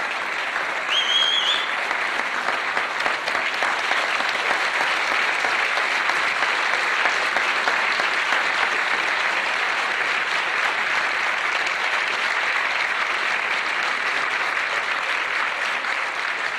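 A large auditorium audience applauding steadily, with a brief high whistle about a second in.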